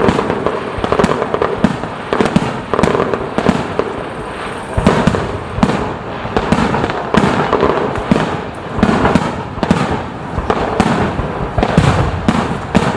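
A fireworks display in a dense barrage: shells bursting in quick succession, several bangs a second with crackle between, never letting up.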